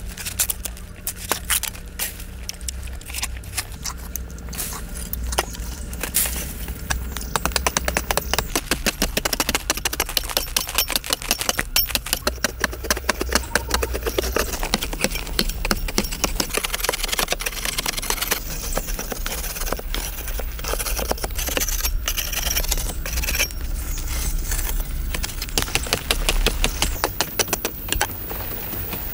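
A few scattered knocks at first, then hand hoes chopping and scraping into hard, dry, stony soil, with many quick strikes in a row and loose earth being raked and scooped.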